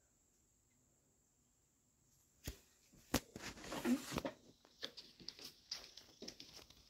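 Quiet at first, then phone handling noise from about two and a half seconds in: scattered clicks and rustling, busiest around four seconds in as the phone is moved, followed by a run of small ticks.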